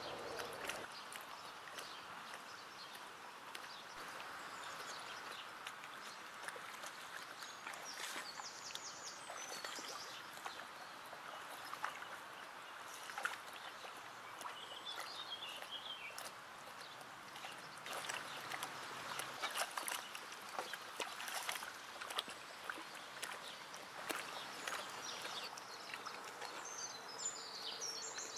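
Icelandic horse feeding on duckweed in a shallow pond, its muzzle in the water: irregular wet slurping, sloshing and small splashes. Birds chirp a few times, briefly midway and again near the end.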